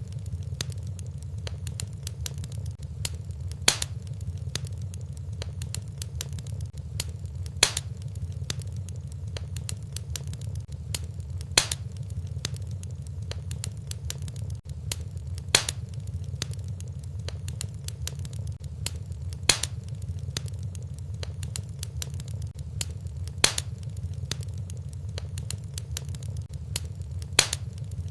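Wood fire crackling in a fireplace over a low steady rumble, with a louder sharp pop about every four seconds.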